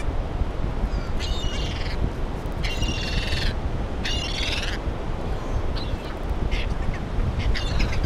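Gulls calling: three long calls in the first five seconds, then a few shorter ones, over a steady low rush of surf.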